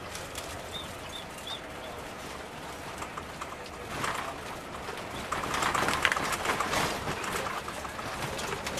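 Bird calls: a few short high chirps about a second in, then louder calls in the second half.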